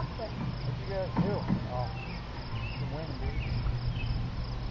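Crickets chirping in a steady, even, high-pitched pulse, with faint voices now and then.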